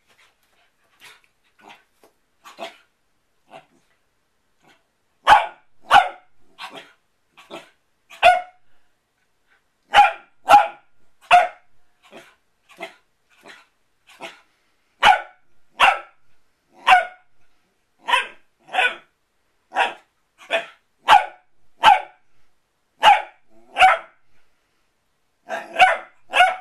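Corgi puppy barking over and over at a toy ball: short, sharp barks, a few soft ones at first, then loud ones coming about one to two a second from about five seconds in.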